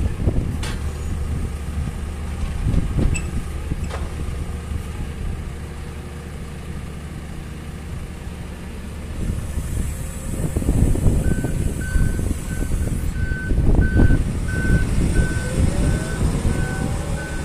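JCB 540-170 telehandler's diesel engine running, growing louder about ten seconds in as the machine moves. From about eleven seconds its reversing alarm beeps steadily, about one and a half beeps a second, and a rising whine comes in near the end.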